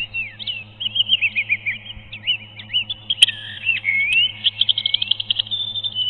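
Songbird song: quick whistled chirps that swoop up and down, breaking into a fast trill a little after the middle, over a steady low hum, with two sharp clicks near the middle.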